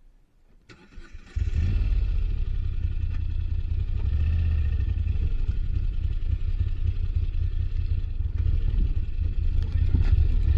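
Moto Guzzi V85TT motorcycle's V-twin engine comes in suddenly about a second and a half in and then runs steadily with a deep, low note.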